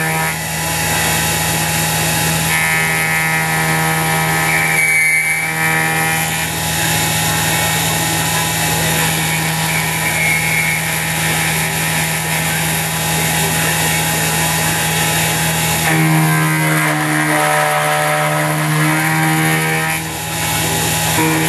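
CNC-converted X2 mini mill running, its spindle motor humming steadily while it mills 6061 aluminum. A layered machine whine above the hum changes pitch a couple of seconds in and again about three-quarters of the way through as the feed changes.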